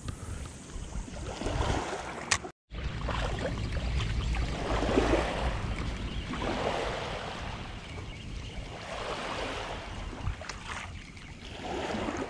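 Wind rumbling on the microphone over small waves washing on a sandy shoreline, the wash swelling and fading every couple of seconds. The sound cuts out completely for a moment about two and a half seconds in.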